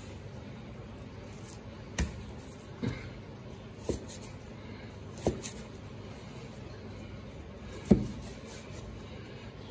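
Chinese cleaver chopping through raw beef onto a plastic cutting board: five separate, unevenly spaced chops, the last one, near the end, the loudest.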